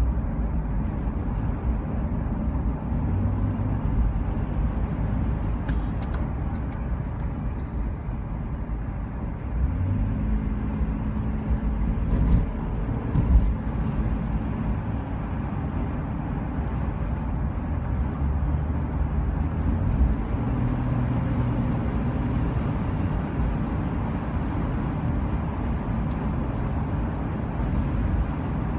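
Motor vehicle driving: a steady low engine and road rumble, with the engine's pitch shifting now and then and a few light knocks.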